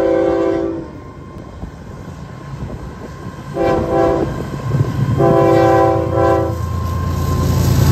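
Florida East Coast Railway diesel freight locomotive horn sounding a chord of several notes: a blast that ends about a second in, then a short blast and a longer one a few seconds later. Under the later blasts the locomotive's engine rumble grows louder as the train draws near.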